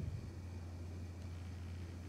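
Boeing 737-800 on the ground with its machinery running: a steady low hum over a faint hiss.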